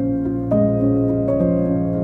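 Gentle instrumental background music, soft single notes picked out one after another over held tones.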